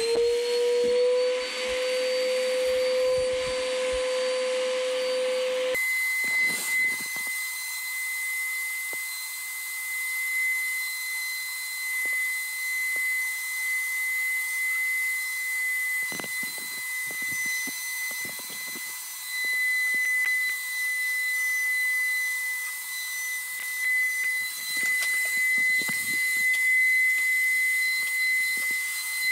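Vacuum cleaner motor spinning up with a rising whine, then running steadily as it sucks wood shavings through a homemade barrel cyclone with a water filter. About six seconds in, the pitch jumps to a higher steady whistle with a hiss, and chips tick as they rattle through the hose.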